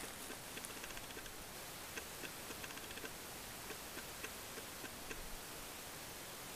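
Faint, irregular ticks and scratches of an American badger's claws working the soil at a burrow entrance, over a steady hiss; the ticks stop about five seconds in.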